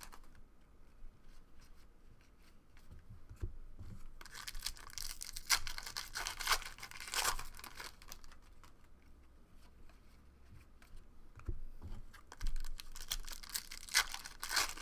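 Foil trading-card pack being torn open and its wrapper crinkled, with cards being handled, in several separate bursts of tearing and crinkling.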